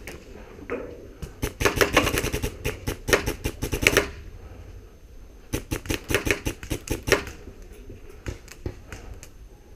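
Airsoft guns firing in rapid bursts of sharp clicks: a long burst from about one to four seconds in, another of about two seconds a little later, then a few scattered shots.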